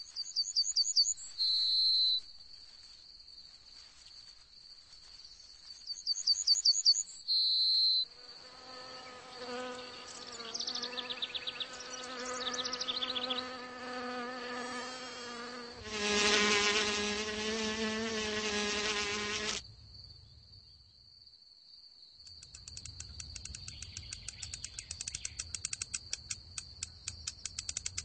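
Insects in a meadow. A steady, high, cricket-like trill runs most of the way. Two short bursts of rising chirps come near the start, a buzzing of flying insects builds through the middle and is loudest for a few seconds past halfway, and fast ticking stridulation sets in near the end.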